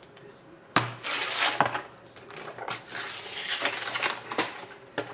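Paper wrapping being ripped and peeled off a metal tin box: a sudden first tear about a second in, then rustling, crinkling tearing in uneven surges, with light clatter from the tin.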